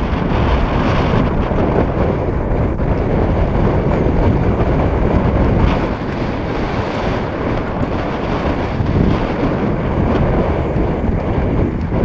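Wind buffeting the microphone: a loud, steady, rumbling noise that rises and falls over the open sea.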